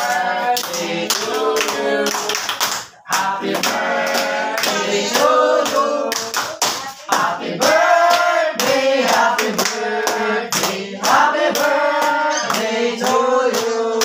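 A group of people singing together, with hands clapping along throughout.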